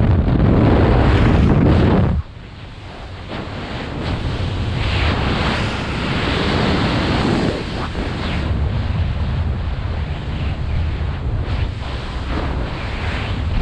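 Freefall wind rushing over the camera's microphone, a loud steady roar. About two seconds in it drops off sharply, then builds back up as the jumper changes position in the airflow.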